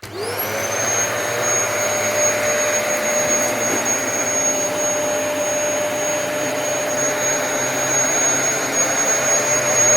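Dyson DC33 upright vacuum cleaner switched on: its motor whine rises quickly in pitch as it spins up, then it runs steadily with a high whine over a loud rushing hiss.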